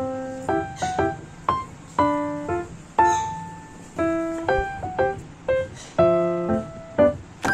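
Background piano music: a light melody of single struck notes that each ring and fade, about two notes a second.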